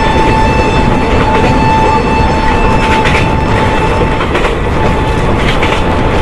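Shramjeevi Express passenger coach running at speed, heard from its open doorway: a loud, steady rush of wheels on rail and air, a steady high hum, and a few clicks of the wheels over rail joints.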